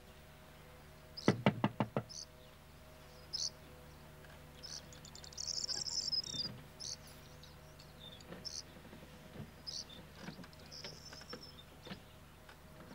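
Insects chirping in short, high trills, with a quick run of sharp knocks about a second in.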